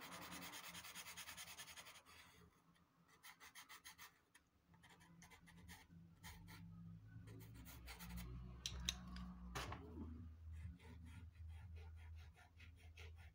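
Faint, rapid scratching of a Derwent pastel pencil hatching in short strokes on sanded Clairefontaine Pastelmat paper, coming in runs. A low hum runs underneath from about six seconds in.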